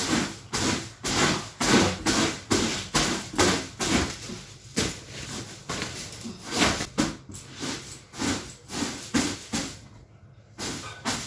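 Soft grass broom swept over a sheet-covered mattress in quick brushing strokes, about three a second, with a short pause near the end.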